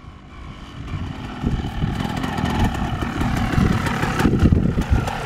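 Motocross bike engine running as the bike rides toward the listener over rough grassland, growing steadily louder as it nears and loudest about four seconds in.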